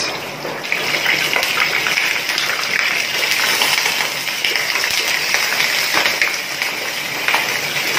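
Hot cooking oil sizzling and spattering around a whole chicken frying in a pan, a dense crackle that grows louder about a second in as the chicken is turned.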